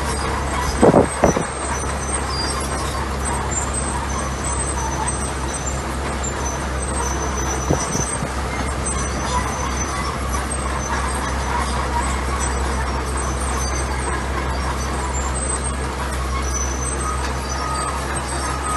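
Heavy diesel earthmoving machinery running steadily with a deep low rumble, with two sharp knocks about a second in and another near the middle.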